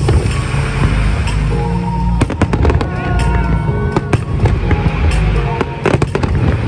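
Fireworks bursting overhead in rapid succession, many sharp bangs over a deep rumble, with music playing under them.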